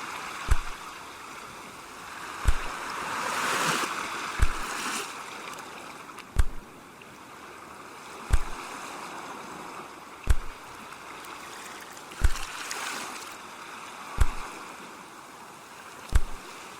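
Ocean waves washing in and drawing back, swelling twice, under a regular low thump that repeats about every two seconds.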